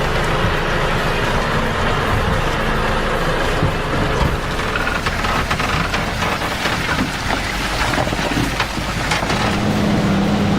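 A heavy vehicle's engine running steadily, with scattered knocks and rattles over it.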